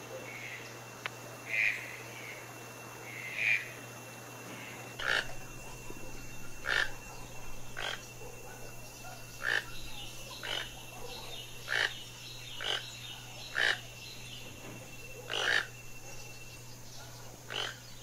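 Toucan calling: a series of about a dozen short calls, one every second or two.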